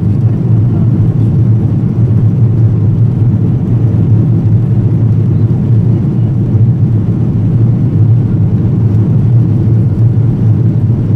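Steady low rumble of jet engines and rushing air inside the cabin of an Airbus A330-200 climbing out after takeoff.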